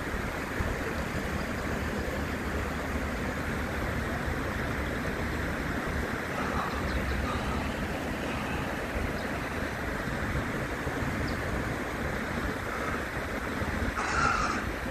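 Shallow stream water running steadily over rocks: a continuous rushing noise with a low rumble underneath.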